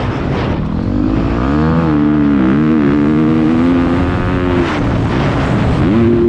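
Motocross bike engine on the track, heard from the rider's helmet: its pitch climbs about a second in, wavers with the throttle, drops away near five seconds and climbs again near the end, over a rushing noise of wind and tyres on dirt.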